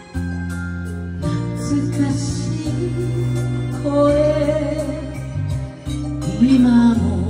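Karaoke backing track with a woman singing over it through a microphone, holding long wavering notes about halfway through and again near the end.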